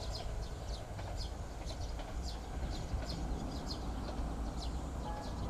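Open-air trackside ambience: short, high, falling chirps from wildlife repeat about twice a second over a steady low rumble.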